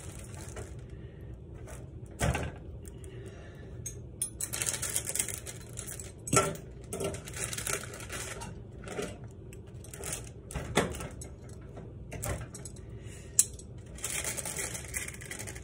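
Kitchenware clinking sharply several times while food is handled on a baking sheet, with stretches of crackly rustling from parchment paper.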